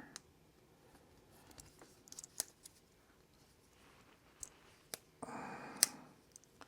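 Small metal clicks and taps from a Leatherman Skeletool CX multi-tool being handled while a screwdriver bit is pried out of its holder. The clicks come singly and in a quick cluster about two seconds in, with the sharpest click near the end during a brief stretch of rustling noise.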